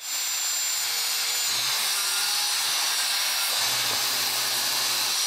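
Corded Skil circular saw cutting across the ends of wooden deck boards in one long continuous pass: a steady high motor whine with the blade rasping through the wood.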